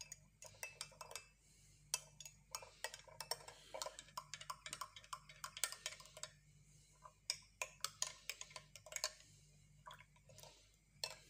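A small spoon tapping and clicking lightly against a container while ground cinnamon is measured in: many faint, quick, irregular ticks in clusters with short pauses.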